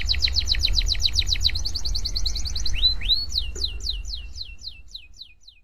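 Domestic canary singing. It gives a fast trill of rapidly repeated notes, then two rising whistles about three seconds in, then a string of falling notes, about four a second, that fades out.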